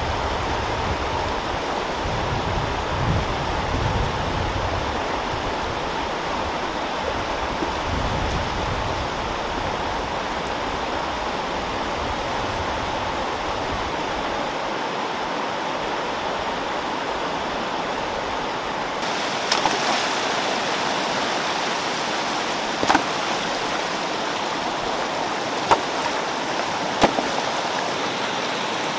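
Stream water rushing steadily over rocks in a shallow rapid. Near the end, a few short sharp knocks stand out over the flow.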